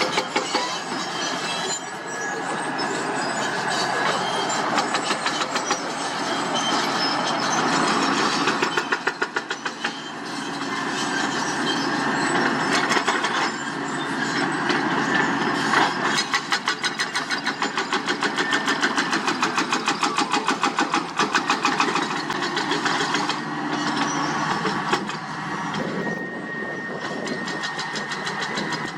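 Diesel engine of heavy earthmoving machinery working under load, with a continuous mechanical clatter. A fast pulsing comes and goes in stretches, about a third of the way in and again past the middle.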